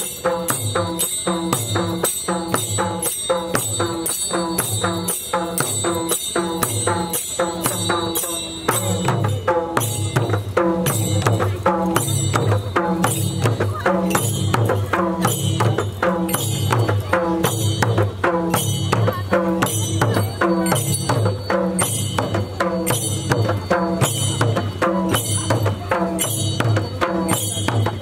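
Tharu folk dance music: a drum and jingling metal percussion keeping a steady, fast beat, with voices singing over it. It gets a little louder about eight seconds in.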